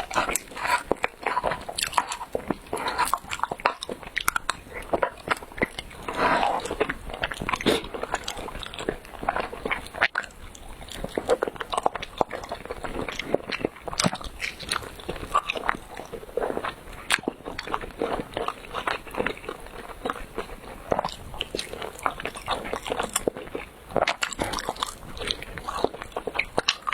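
Close-miked biting and chewing of chewy rice cake: a dense, irregular run of short mouth clicks and smacks.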